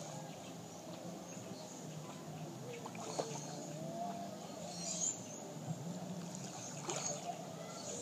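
Water lapping and sloshing around swimmers at the surface, with a few sharper splashes about three, five and seven seconds in.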